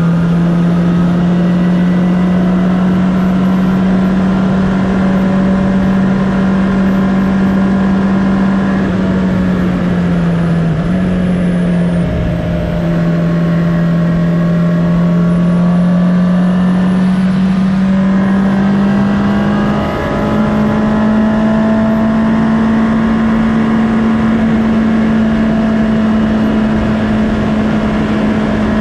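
Honda CB650R's inline-four engine running at a steady cruise, heard onboard over wind noise. Its note holds fairly even, drops briefly about twelve seconds in and steps up a little about twenty seconds in.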